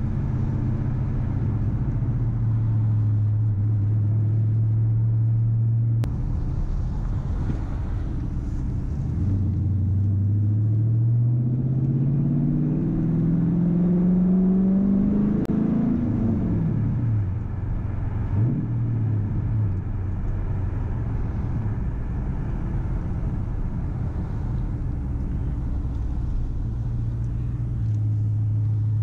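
Straight-piped Dodge Challenger R/T's 5.7-litre HEMI V8, heard from inside the cabin. It holds a steady low note, then pulls with a long rising pitch for about six seconds, drops away quickly when the throttle is lifted, and rises and falls briefly once more. It rumbles lower after that and settles back to a steady note near the end.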